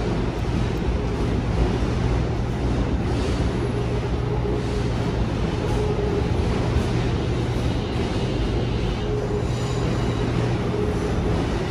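Steady low vehicle rumble with a constant deep hum and a faint held higher tone.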